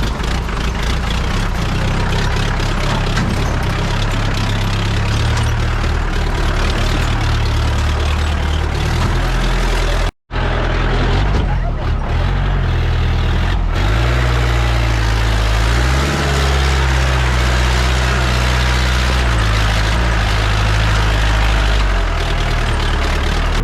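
Jeep engine running under load while driving off-road, its pitch shifting up and down with the throttle and gear changes. The sound cuts out for an instant about ten seconds in.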